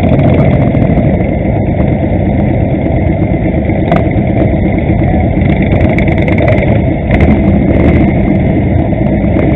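Engines of a pack of cruiser motorcycles running at low speed, a loud steady rumble heard from a camera riding on one of the bikes.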